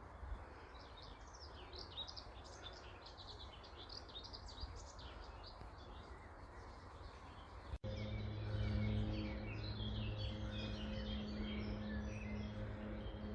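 Small songbirds chirping and singing, many short high calls overlapping, over steady outdoor background noise. About eight seconds in, the sound cuts to another recording where the birdsong goes on over a steady low hum.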